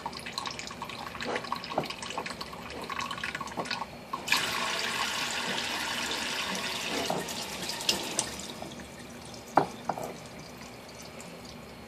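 Kitchen tap running for a few seconds from about four seconds in, water splashing over a hand into the sink as water is worked into stringy fluffy slime. Drips and small knocks before and after the flow.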